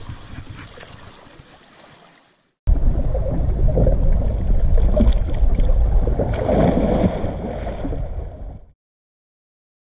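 Wind buffeting the microphone over the sea washing against shore rocks. The sound drops out and comes back loud about two and a half seconds in, with a splash from a person diving into the sea near the end, before it cuts to silence.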